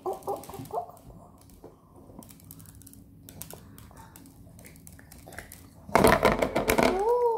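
A plastic lid and sprinkles handled close to the microphone, with scattered light clicks and rustles. About six seconds in there is a loud burst of rubbing noise as the lid moves against the mic, with a child's voice at its end.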